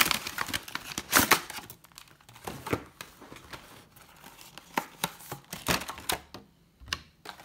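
Packaging crinkling and tearing as it is pulled open by hand: a dense burst of crackling in the first second and a half, with the loudest snap about a second in, then scattered crackles and clicks.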